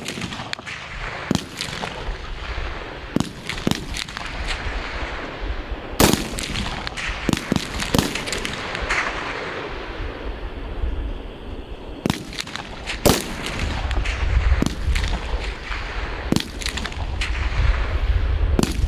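Rifle gunfire during live-fire shooting practice: many single shots at irregular intervals, some loud and close, others fainter, with the loudest cracks about six seconds in, about thirteen seconds in and near the end.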